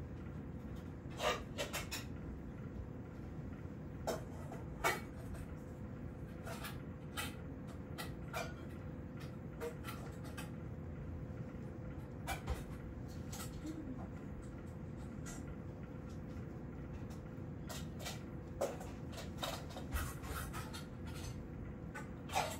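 Room tone: a steady low hum with a faint steady whine, broken by a dozen or so light clicks and taps at irregular intervals.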